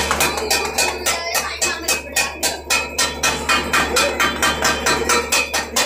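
Palms slapping newly set ceramic wall tiles to bed them into the cement, a quick even run of knocks about four a second, over background music.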